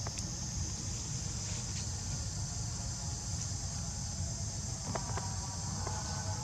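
Steady, high-pitched insect chorus with a low rumble underneath and a few faint clicks about five seconds in.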